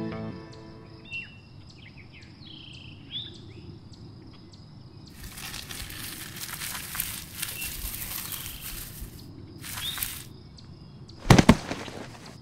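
Birds chirping over a faint regular ticking of insects in open countryside. About five seconds in a noisy rustle starts and runs for some four seconds; there is a shorter one near ten seconds, and then a loud thump in two hits close together near the end.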